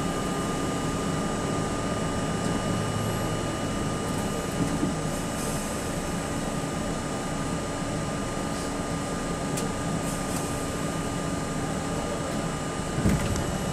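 Steady hum of a New York City subway train standing in a station, with several constant high-pitched tones over a low rumble. A single sharp clunk comes near the end.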